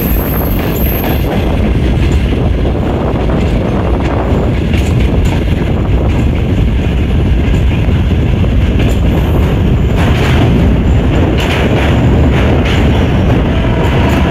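Passenger train running at speed, heard from an open carriage window: a steady rumble of wheels on rail with occasional sharper clacks, which come more often near the end as the train rolls onto a steel truss bridge.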